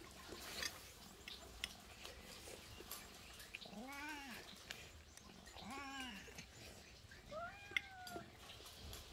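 Domestic cat meowing three times, each a drawn-out arching call, the last sliding down in pitch, with light clicks of a spoon against a plate between them.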